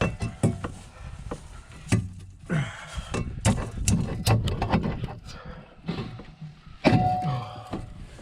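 Irregular metal knocks and clanks of tools working on a rusted car exhaust being taken off, with a few sharp knocks near the start and a louder clank with a brief ring about seven seconds in.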